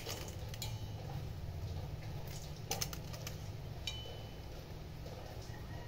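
Hands handling cabbage leaves and kitchen things at a cutting board and steel bowl, giving a few scattered light clicks and knocks over a steady low hum.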